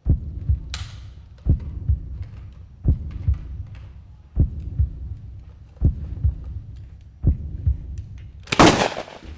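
Heartbeat sound effect: low paired thumps, lub-dub, repeating about once every one and a half seconds, with a loud half-second burst of noise near the end.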